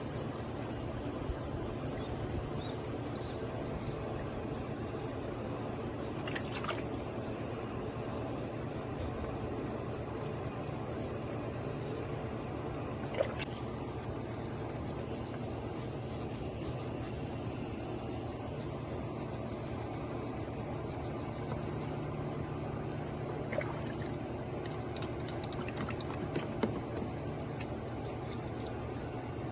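Steady high-pitched chirring of insects such as crickets, over a faint trickle of water, with a few light knocks, the clearest about halfway through.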